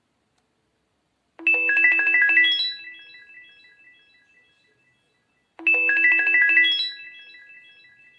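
A Samsung GT-C3530 mobile phone playing one of its preloaded alert tones: a quick run of electronic notes climbing in pitch, then echoing notes that die away. The tone plays twice, about four seconds apart.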